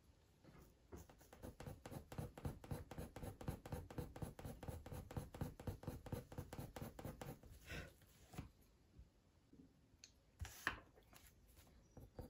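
Faber-Castell Polychromos coloured pencil scratching faintly on hot press watercolour paper in quick, short shading strokes, several a second. The strokes stop about two-thirds of the way through, leaving a few single taps.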